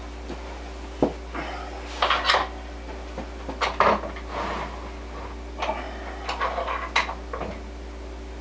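Scattered metallic clinks, clicks and knocks as a wood lathe's tailstock and its shims are handled and moved, over a steady low hum.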